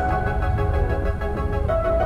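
Background music: held chords over a steady deep bass.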